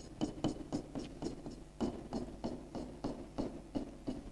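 Pen tip on an interactive smart board screen, tapping and scraping in quick short strokes about three to four times a second as a row of hatch marks is drawn.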